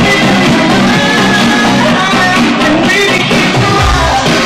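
Loud electronic dance music from a DJ set, in a stretch with a melodic lead and little deep bass; the heavy bass comes back in near the end.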